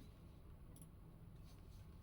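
Near silence: room tone with two faint clicks, less than a second apart.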